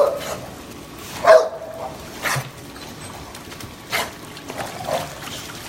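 Dog barking: a handful of short single barks, about four, spaced a second or so apart.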